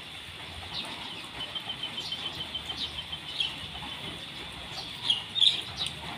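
Birds chirping, with a quick, even trill of high notes in the first half and two louder chirps close together near the end, over a steady high insect drone.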